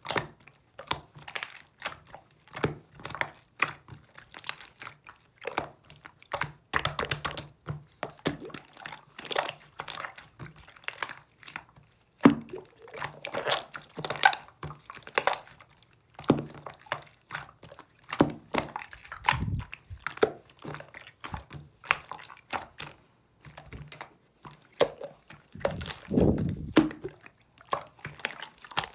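Close-up crunching and chewing of dry, crisp pieces, likely roasted solomon's seal root (둥글레차), with dense irregular cracks. A few duller, heavier crunches come about two-thirds of the way in and near the end.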